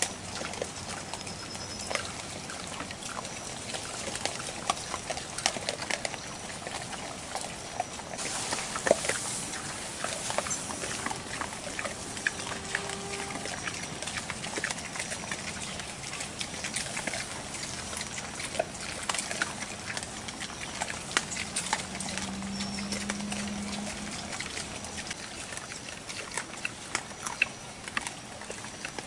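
A herd of collared peccaries moving through the undergrowth below: many scattered sharp clicks and snaps with rustling in the leaf litter, the clicks typical of peccaries clacking their teeth.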